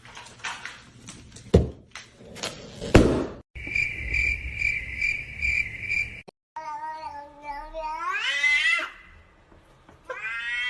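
A few knocks and clicks, then a steady high tone pulsing about six times a second for around three seconds. Then a domestic cat gives one long meow that rises in pitch at the end.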